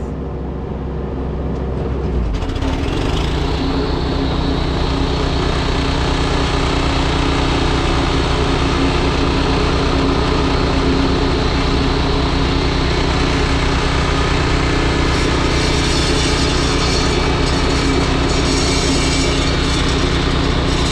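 Kubota U17 mini-excavator's diesel engine throttling up about two seconds in, then running steadily at working revs.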